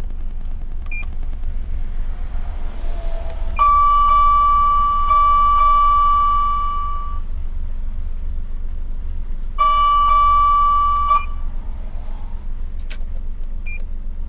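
An SAP-520FB siren amplifier sounding a steady, unwavering electronic tone through its speaker. The tone holds for about three and a half seconds, stops, then sounds again for about a second and a half. There is a short high beep near the start and another near the end, over a steady low rumble.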